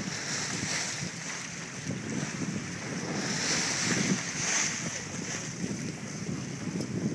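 Wind buffeting the microphone over open sea, with waves washing against a boat. It swells and eases, louder around the middle.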